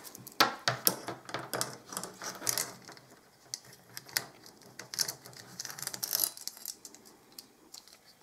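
Loose 1/4-inch-pitch steel saw chain rattling and clinking as it is handled and fitted around the chainsaw's guide bar: a quick, uneven run of small metallic clicks.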